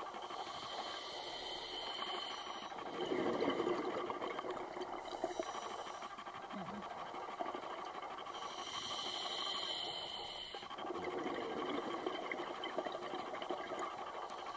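Scuba diver breathing through a regulator underwater: a hiss on each inhalation, then a louder gurgling rush of exhaled bubbles, in slow breaths several seconds apart.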